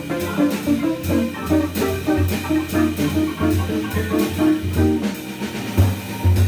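Jazz organ trio playing live: archtop electric guitar and organ with a drum kit. Quick melodic notes run over low organ bass notes, with drum strokes throughout.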